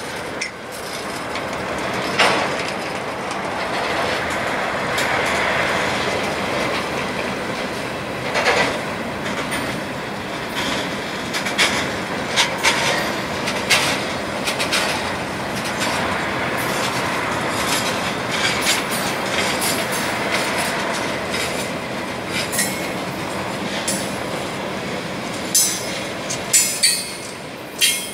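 Freight train of boxcars rolling past: a steady rumble of steel wheels on rail, broken by sharp clicks and clanks of the wheels, with a quick run of them near the end.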